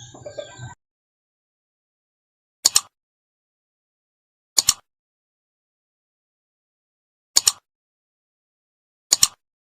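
Background sound cuts off abruptly under a second in, leaving dead silence broken four times by the same sharp double click, about two to three seconds apart.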